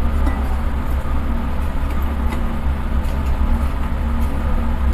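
Electric vegetable chopper running steadily as it grinds peeled shallots, an even motor drone with no breaks.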